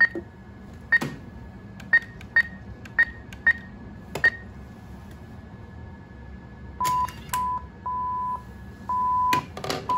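Diebold ATM keypad beeping: about seven short, high beeps as the side buttons are pressed. Near the end come a series of lower, longer beeps and a brief clatter, the machine's alert to take the card back after the transaction is cancelled.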